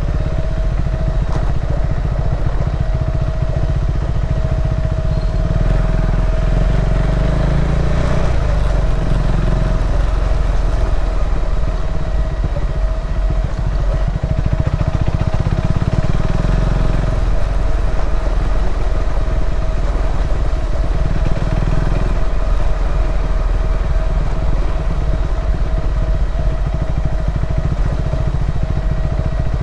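KTM 390 Adventure's single-cylinder engine running as the motorcycle is ridden offroad, with a heavy low rumble that swells and eases several times as throttle and load change.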